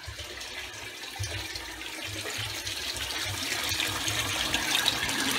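Return water from a Jebao DCT15000 return pump rushing out of 2-inch return lines and splashing into the aquarium, getting steadily louder. The pump has just been switched on and is pushing a decent amount of flow out of all four outlets.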